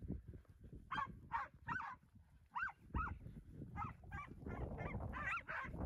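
Cattle-herding dogs barking in short, high yips, a dozen or so in quick runs, as they hold a bunch of cattle, over a low rumbling noise.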